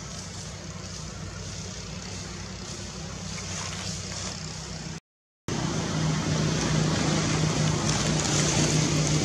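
A steady low mechanical hum with background hiss, like a running engine. It drops out completely for about half a second around five seconds in and comes back louder.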